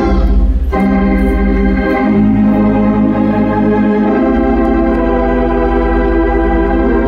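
Wurlitzer theatre pipe organ playing sustained full chords over deep pedal bass notes, the harmony shifting a few times.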